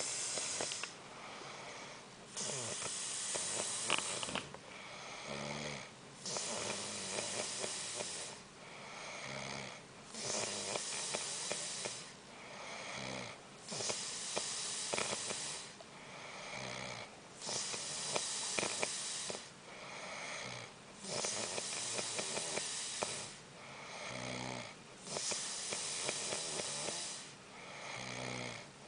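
Steady snoring, about one breath every four seconds. Each cycle has a loud, hissing breath followed by a lower, rattling snore.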